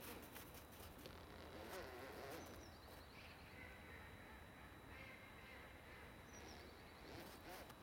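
Faint outdoor quiet with distant birds calling: some low wavering calls, and a short high call heard twice, about two and a half seconds in and again about six and a half seconds in.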